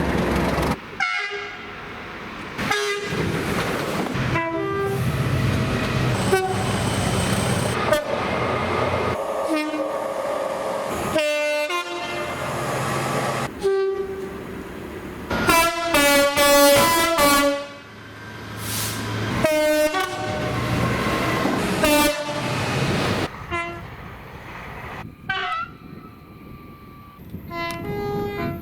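Train horns sounding in a string of short clips cut one after another, each horn a chord of several tones given in blasts of varying length, over the low rumble of passing trains. The loudest blasts come about two-thirds of the way through.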